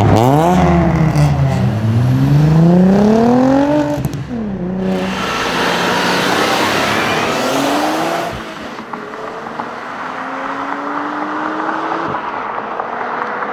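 Audi RS4 B5's twin-turbo V6 accelerating hard through the gears. The engine note climbs in pitch and drops back at each upshift, about four and eight seconds in, then grows fainter as the car pulls away.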